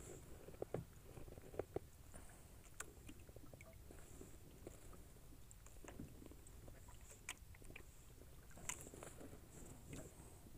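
Near silence with faint scattered clicks and light knocks.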